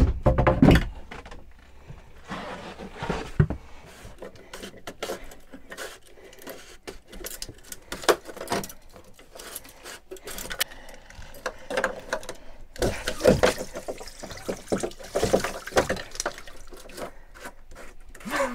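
Hands working in a yacht's bilge, fitting the depth-sounder transducer back into its through-hull housing: irregular clicks, knocks and rustles of plastic and cable, with a loud knock at the start.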